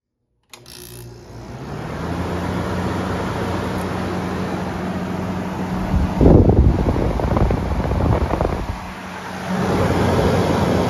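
A 1979 Hotpoint 7800 BTU window air conditioner switched on with a click, its fan coming up over about a second to a steady blowing with a low hum. From about six seconds in there is a louder, uneven rumble for a couple of seconds before the steady blowing returns.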